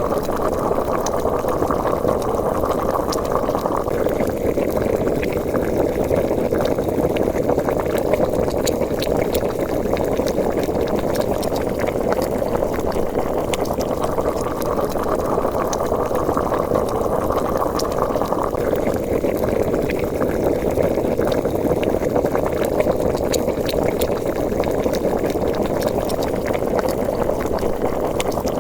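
A pot of liquid at a full boil, bubbling steadily with many small pops. The texture rises and falls about every fourteen seconds, as in a looped sound effect.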